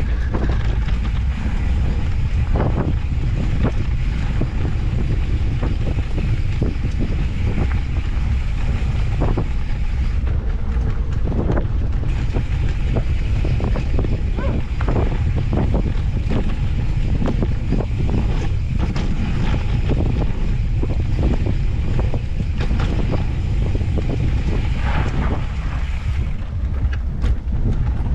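Wind buffeting a moving bike-mounted microphone as an off-road handcycle rolls down a dirt trail. A heavy, steady rumble runs throughout, with frequent small knocks and rattles from the bike over rough ground.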